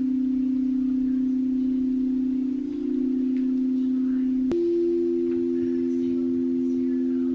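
Meditation drone music: two steady, bell-like low tones held together. Near the middle a sharp click cuts in and the upper tone jumps higher.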